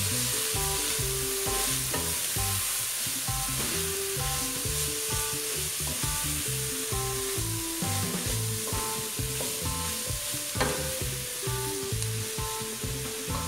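Bacon, calabresa sausage and vegetables sizzling in a stainless steel pot while being stirred with a wooden spoon, over soft background music.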